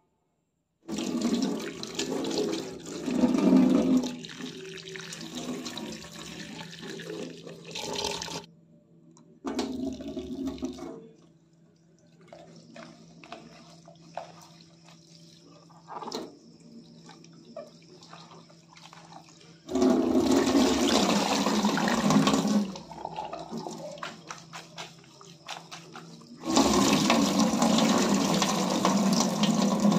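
Water running and splashing at a stainless steel kitchen sink as vegetables are rinsed in a plastic bowl and the water is poured off. Four loud spells of a few seconds each, with quieter splashes and small knocks of the bowl and leaves being handled in between.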